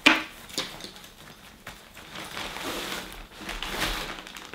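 Rustling of a roll-top dry bag being opened, with a sharp rustle at the start, then plastic freezer bags crinkling as they are pulled out of it near the end.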